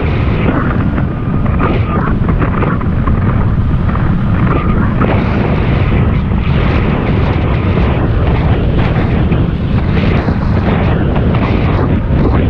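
Wind buffeting the microphone of a camera on a moving bicycle, a loud, steady rush with uneven flutter.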